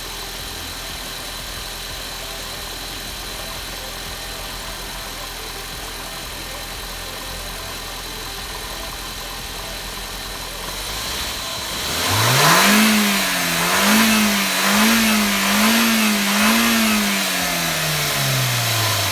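Audi A4 petrol engine idling steadily, then revved hard about twelve seconds in, blipped up and down about five times, and dropping back toward idle near the end. It runs after a new intake manifold gasket and crankcase breather pipe were fitted to cure a misfire, and the owner takes it to sound like success.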